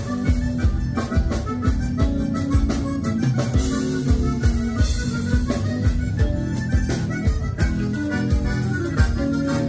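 Live gaúcho dance-band music led by accordion, with sustained reedy chords over a steady drum beat.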